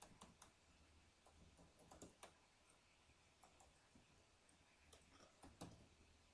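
Faint, irregular keystrokes on a computer keyboard as code is typed, coming in small clusters, with one cluster about two seconds in and the loudest near the end.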